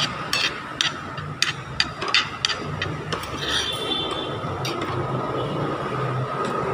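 Metal spoons and forks clinking and scraping against plates during a meal: a quick run of sharp clinks in the first three seconds and another near the end, with a brief squeak of metal on a plate in the middle, over a steady background hum.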